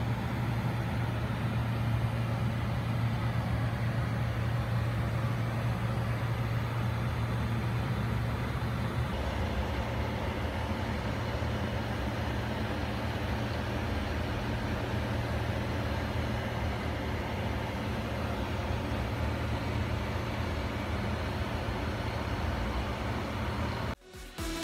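Steady low mechanical hum and rumble, changing slightly in tone about nine seconds in and cutting off suddenly near the end.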